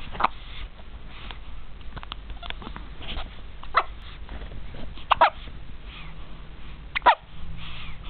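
A young baby hiccuping: four short, sharp hiccups at irregular intervals.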